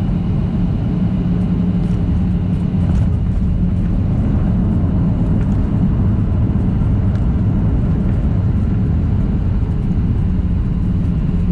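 Cabin noise of a Boeing 737-700 on the ground just after landing: its CFM56 jet engines and airframe give a steady low rumble with a constant hum.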